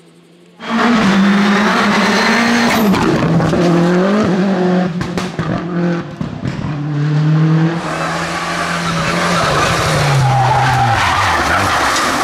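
Rally car engines revving hard, the pitch stepping up and down with gear changes, over tyre noise as the cars slide through corners. The sound starts suddenly about half a second in.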